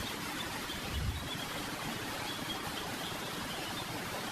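Steady background hiss of room tone, with a faint low thud about a second in.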